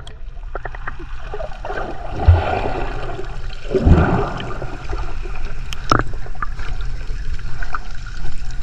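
Water sloshing and gurgling close to the microphone, swelling twice in the first half, with a few sharp clicks a little past the middle.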